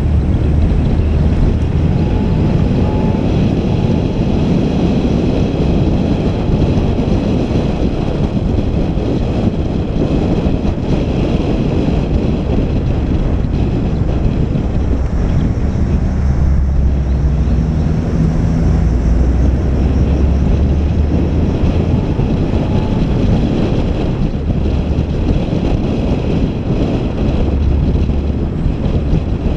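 Steady low rumble of a vehicle on the move, engine and road noise, with wind buffeting the microphone.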